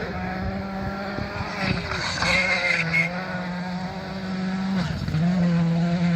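Rally car engine running hard at high revs, holding a steady pitch with short dips about two seconds in and again near five seconds, like gear shifts or lifts off the throttle.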